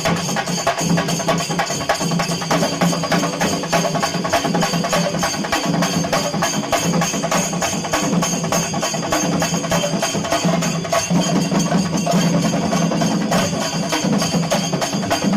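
Shinkari melam: Kerala chenda drums beaten in a fast, dense, unbroken rhythm, with ringing metal percussion over them.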